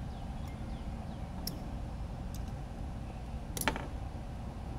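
A few light clicks of small drone parts and a screwdriver being handled on a workbench, with one sharper click about three and a half seconds in, over a steady low hum.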